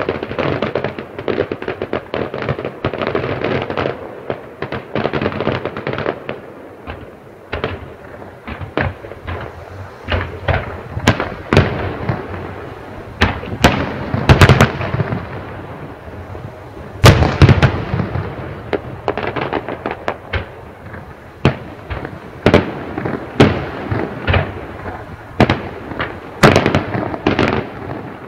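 Fireworks display: dense crackling for the first few seconds, then a long run of sharp bangs from aerial shells bursting, the loudest about two-thirds of the way through.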